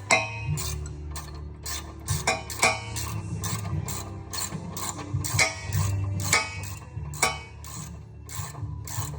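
Socket ratchet clicking in short, irregular strokes, with the metallic clatter of hand tools.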